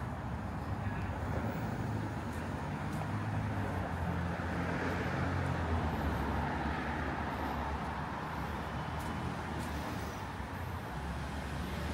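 Street traffic: car engines running and tyre noise, swelling around the middle as a vehicle passes, then easing.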